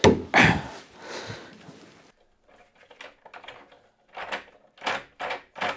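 Mortice lock in a wooden door being worked to test it: two solid knocks right at the start, then, after a break, a run of about six sharp clicks from the latch and bolt.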